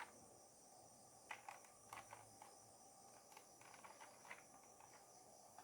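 Near silence: faint scattered clicks, about a dozen, over a steady faint high-pitched hiss.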